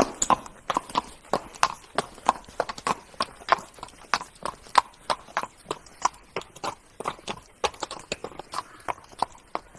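Horse hooves trotting: a steady, even run of sharp hoof strikes, about three a second.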